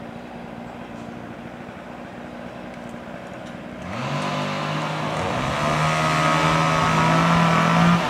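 A low, steady engine hum, then a chainsaw revs up sharply about four seconds in and runs at high speed, its pitch climbing a little and then holding, getting louder.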